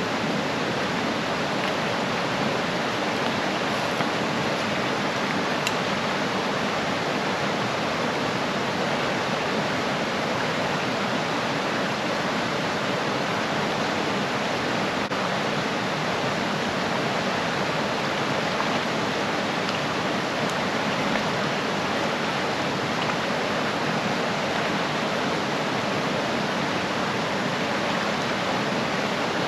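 Steady rush of flowing water from a mountain trout stream.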